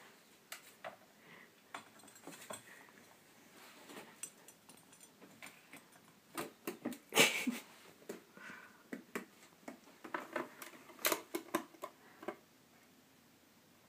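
Scattered light taps, clicks and rustles of a cockatiel clambering about cupboard shelves, its feet on jars, plastic tubs and bags. The sounds are busiest about halfway through and again around ten seconds in.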